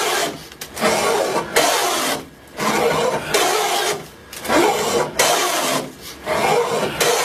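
Hand plane taking long strokes along an old wooden board, a series of rasping shaving strokes about one every second and a half.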